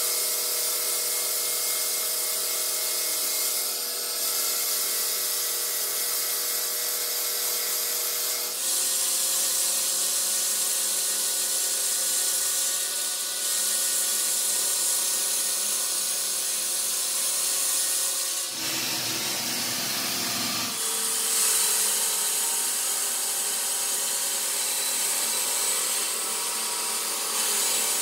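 Large water-cooled circular saw blade of a stone block cutter grinding through a stone block: a steady hissing grind over a whine of a few steady tones. The sound shifts at several cuts between shots, and about two-thirds through there is a two-second stretch with a deeper rumble.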